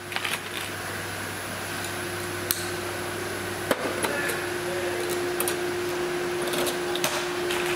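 Sharp metallic clicks of clecos being snapped into the holes of an aluminium flaperon skin and plastic wingtip with cleco pliers, several at irregular intervals. Behind them runs a steady shop hum that grows stronger about halfway through.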